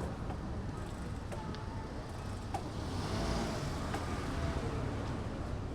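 Street traffic noise over a steady low rumble, with a car passing and swelling in hiss about three seconds in.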